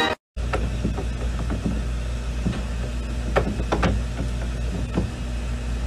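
A handful of short, light clicks and knocks over a steady low rumble.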